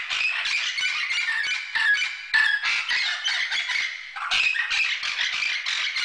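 Parrots squawking in a dense, unbroken run of rapid harsh calls, with a brief lull about four seconds in.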